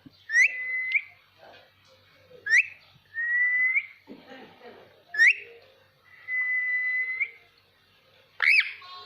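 Ringneck parrot whistling: three times a quick sharp upward whistle followed by a steady held whistle lasting about a second, then one loud rising whistle near the end.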